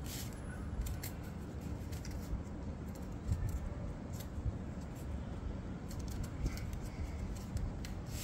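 A sheet of paper being folded and creased by hand: irregular crisp crackles and rustles, with low handling bumps underneath.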